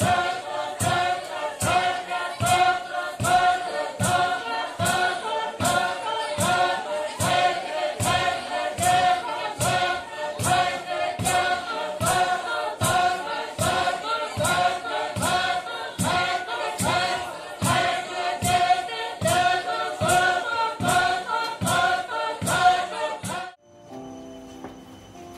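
A congregation singing a worship chorus together, clapping hands in time at about one clap every 0.8 seconds. The singing and clapping stop abruptly near the end.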